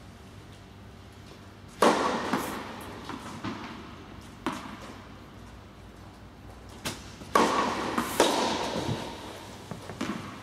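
Tennis balls struck by rackets and bouncing on an indoor hard court, a string of sharp hits that echo through the large hall, the loudest about two seconds in and again about seven seconds in.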